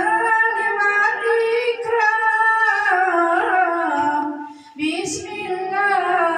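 A woman singing a melodic Islamic devotional chant through a microphone, holding long, slightly wavering notes. There is a short pause for breath just under five seconds in.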